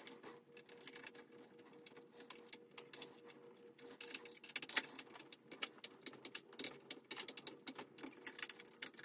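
Quick, irregular small metal clicks and ticks of a hand tool turning a screw as the rear fender screw on an electric scooter's swing arm is tightened. The clicking grows busier and louder about four seconds in.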